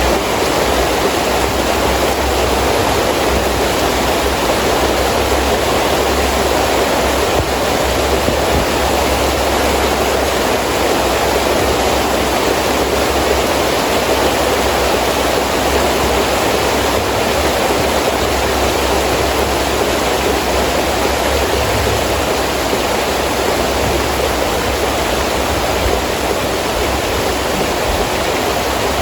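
Heavy rain falling steadily with wind, an even rushing wash with a low rumble underneath and no distinct drops or thunder claps.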